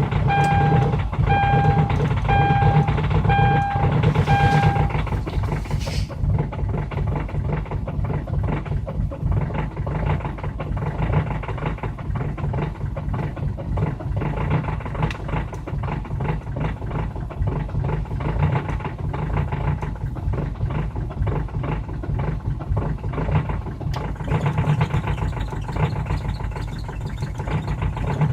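Diesel car engine idling unevenly just after a cold start in about −30 °C, misfiring and trying to stall. For the first five seconds a dashboard warning chime beeps repeatedly over it.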